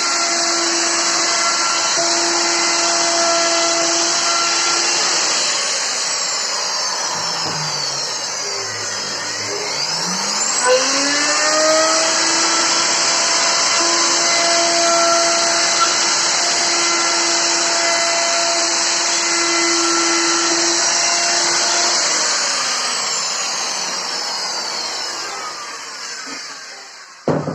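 Handheld electric wood router milling an oak shelf: its motor runs with a steady high whine and hiss, winds down about five seconds in, starts up again about ten seconds in, and is switched off about twenty-two seconds in, coasting down to a stop. A short knock comes near the end.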